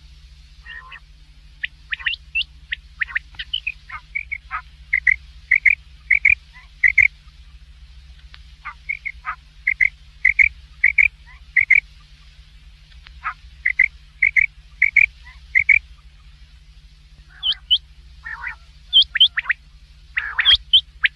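A quail calling: runs of about five short, clipped notes, roughly two a second, repeated with pauses of a couple of seconds between runs. A steady low electrical hum lies underneath.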